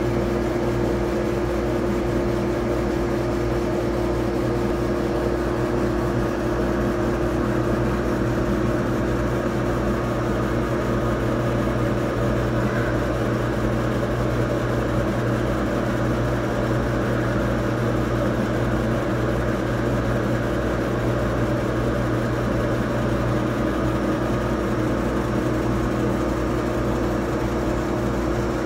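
Laser engraving machine running as it engraves a glass bottle turned on a rotary attachment: a steady mechanical hum with a few constant low tones.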